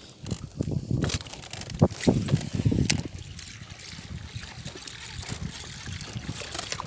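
Water sloshing and lapping against the wooden boat and the half-sunken bamboo raft, with a couple of sharp knocks about two and three seconds in. It is quieter and steadier in the second half.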